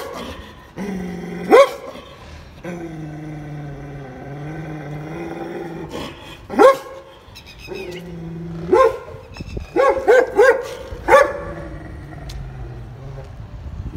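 German Shepherd barking in single sharp barks, with a quick run of barks about ten seconds in. Between the barks it gives long, low, steady growls.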